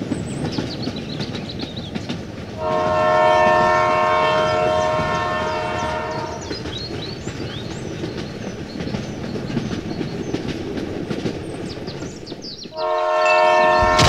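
Battery-powered toy steam locomotive running on plastic track with a steady rattle of motor and wheels. Its horn sounds a held chord for about four seconds, then sounds again near the end.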